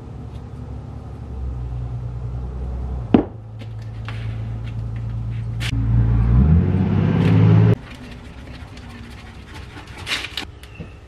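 A low mechanical rumble with a steady hum, with a sharp click about three seconds in; it rises in pitch and then cuts off abruptly about two-thirds of the way through. Near the end come a few short scrapes of a spreader mixing Bondo body filler on a paper plate.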